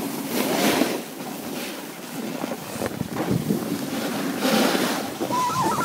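Wind rushing over the microphone, mixed with the hiss of snow under moving snowboards, swelling and fading several times.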